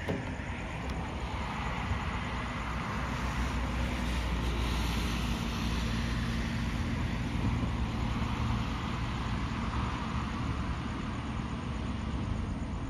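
Low, steady rumble of road traffic and a distant Taipei Metro C321 train rolling slowly, with a low hum that swells for several seconds in the middle.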